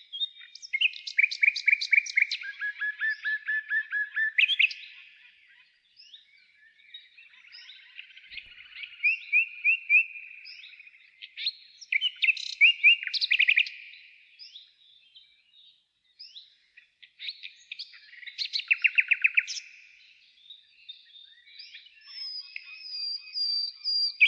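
Songbirds singing in bouts of quick repeated notes and trills, each phrase lasting a couple of seconds with short pauses between.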